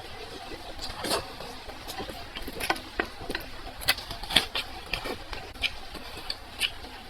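Close-miked eating sounds: chewing with irregular wet clicks and smacks of the mouth, several sharper ones in the middle.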